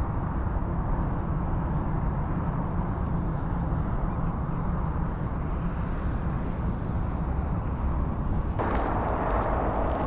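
Steady low rumble of wind on an outdoor microphone. About eight and a half seconds in it changes abruptly to crunching footsteps on a gravel path, with a few sharp steps.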